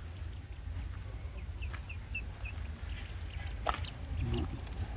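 A duckling peeps five times in quick, high succession about a second and a half in. Near the end there is a sharp knock, with a low rumble underneath throughout.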